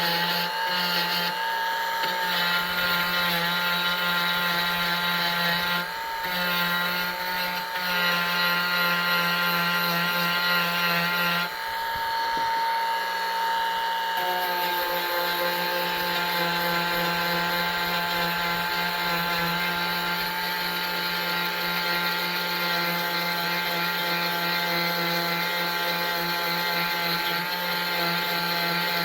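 Dremel rotary tool with a wire-brush bit running at high speed, a steady whine, as it brushes the scorched, discoloured plastic off the welds on a blow mold. The whine breaks briefly about six and twelve seconds in.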